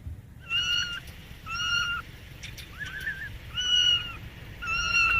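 Kitten meowing: five short, high-pitched mews about a second apart, each held at a fairly level pitch and dropping slightly at the end.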